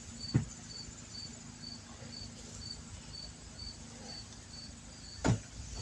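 Cricket chirping steadily, a short high chirp about twice a second, over a faint low hum. There is a knock just after the start and a louder thump about five seconds in.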